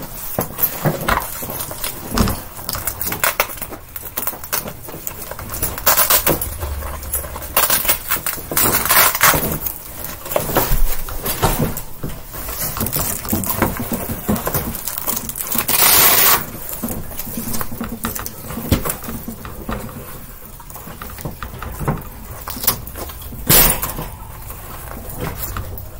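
Wire grid panels of a guinea pig cage rattling and clinking as they are handled and joined at the corners, with irregular clicks and knocks as the connectors are snapped on.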